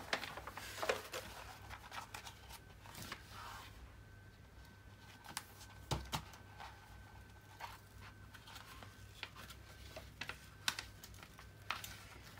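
Plastic cover sheet of a diamond painting canvas being handled: scattered crinkles and light clicks as it is put back down and smoothed flat against the tacky glue, with the loudest crackles about a second in, near the middle and near the end.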